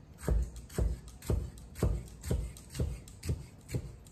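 Chinese cleaver slicing blanched bitter melon on a wooden chopping block, the blade knocking on the wood in a steady rhythm of about two strokes a second.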